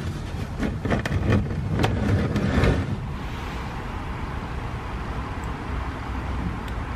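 Used engine oil dripping and splashing off an old oil filter into a drain tray: a few irregular splats in the first three seconds, over a steady low outdoor rumble.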